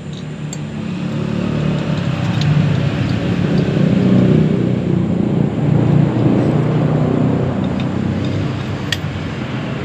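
A motor vehicle engine running, its low rumble growing louder over the first few seconds and then holding steady, with a few faint light clicks.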